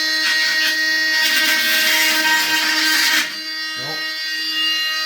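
Oscillating multi-tool running with a steady high buzz, its blade cutting with a louder rasp from about one to three seconds in. The sound cuts off at the end.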